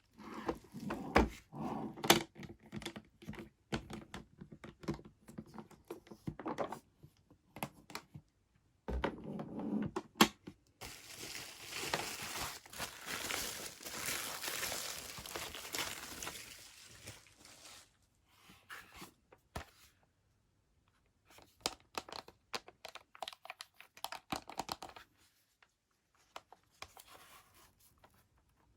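Packaging being unwrapped: tearing and crinkling, with many small clicks and knocks throughout and a long stretch of steady tearing or rustling from about a third of the way in.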